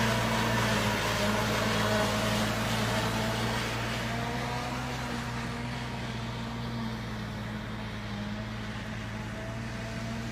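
Case IH JX100 tractor's diesel engine driving a three-row corn silage harvester, running at a steady, unchanging speed with a constant hum. It gets slightly quieter after about four seconds.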